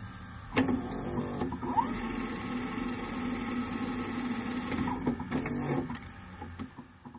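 Digital glitch sound effects of an animated logo outro: a steady electronic buzz broken by sharp crackles and clicks, fading out near the end.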